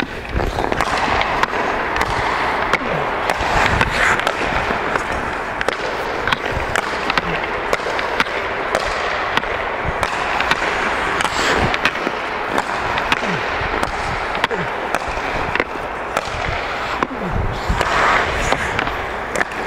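Ice skate blades scraping and carving across rink ice, with a hockey puck clacking sharply off stick blades again and again as it is passed back and forth.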